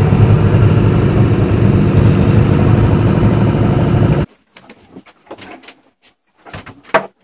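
A boat's engine running steadily, the boat motoring while there is no wind to sail. About four seconds in the drone stops abruptly. After that it is quiet apart from a few short knocks, the loudest near the end.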